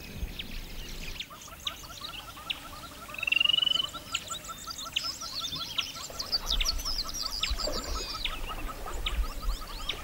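Savannah wildlife ambience: a steady run of quick, repeated chirping calls, several a second. About three seconds in comes a short rising trill, and higher bird chirps overlap through the middle.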